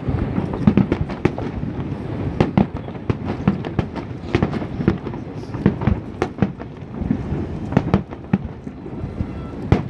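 Aerial fireworks bursting in quick, irregular succession: a dense string of booms and sharp cracks over a continuous low rumble.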